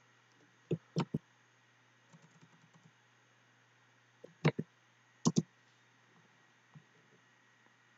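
Clicks of a computer mouse and keyboard: three sharp clicks about a second in, a faint quick patter of ticks around two seconds, then two more groups of two or three clicks between four and five and a half seconds in.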